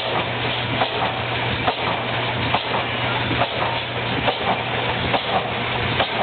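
Large twin-flywheel stationary gas engine running, with a sharp beat recurring a little under once a second over a continuous clatter and hiss from other old engines running nearby.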